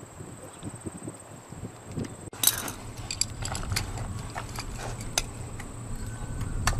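Scattered small metallic clicks and clinks of hand tools and parts as a mechanic works on a Miniplane Top 80 paramotor's engine, the loudest about two and a half seconds in.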